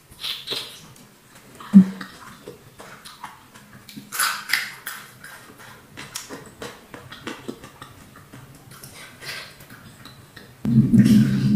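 Close-up eating sounds: a bite into fried tempe mendoan, then chewing with wet mouth clicks and smacks, and one sharp click about two seconds in. Near the end a loud steady low hum comes in suddenly.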